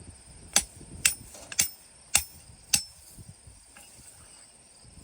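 Five sharp hammer strikes, about half a second apart and each with a brief high ring, pounding a seed-sign post into the ground.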